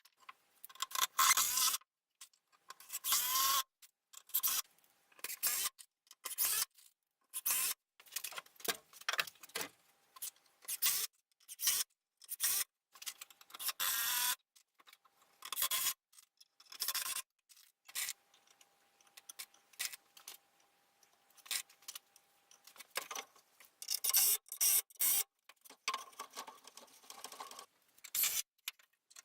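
Woodworking on timber: short bursts of scraping and rasping, cut off abruptly again and again.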